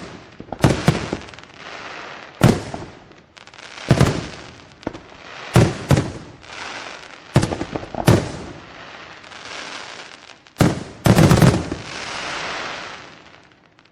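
Aerial fireworks bursting: sharp bangs every second or two, each followed by a crackling tail, with a quick cluster of bangs about eleven seconds in. The crackle then fades away near the end.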